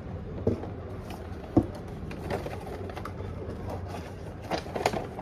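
Plastic fast-food drink cups and a paper takeout bag being handled: a few light knocks and handling noises over a low steady hum.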